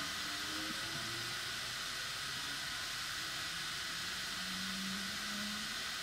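Bambu Lab X1 Carbon 3D printer running its device self-test: a steady fan hiss, with two brief faint low hums from its motors, one near the start and one about four and a half seconds in.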